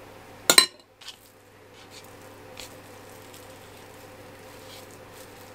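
A metal spoon clinks once with a short ring about half a second in, as it is set down. After it come a few faint crinkles of plastic wrap being handled, over a steady low hum.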